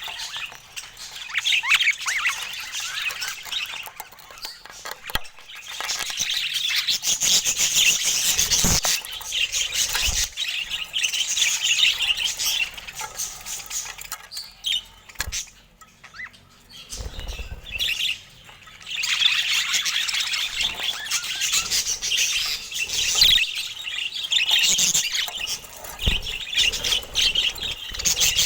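Pet budgerigars chattering and chirping in busy, warbling stretches broken by a few brief lulls, with an occasional soft low thump.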